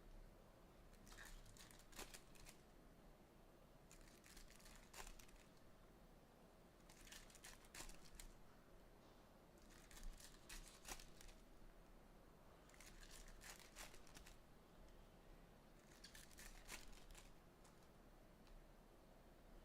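Faint tearing and crinkling of trading-card pack wrappers being ripped open, in short bursts about every three seconds.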